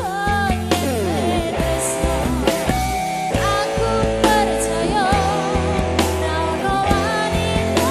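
Live Orkes Melayu (dangdut) band playing: a melody with vibrato over held bass notes and drums.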